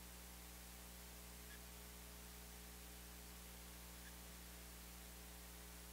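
Near silence: a faint, steady electrical mains hum with hiss from the sound system.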